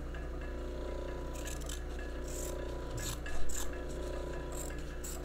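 Scissors snipping through oilcloth in a series of short scratchy cuts, the loudest about three and a half seconds in. Under it, the steady hum of the Merrow overlock's electric motor running, which is quieter than a lot of them.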